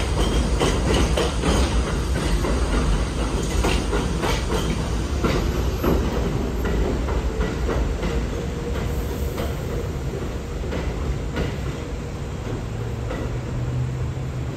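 R62A subway cars running on elevated steel track: a heavy rumble with the wheels clacking over rail joints, the clacks thinning out and the noise fading through the second half. A steady low hum comes in near the end.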